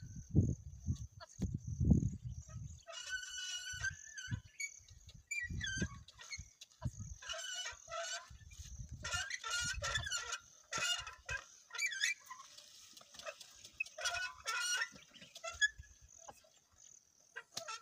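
Scattered animal calls over a steady high-pitched drone, with low rumbling bumps in the first few seconds.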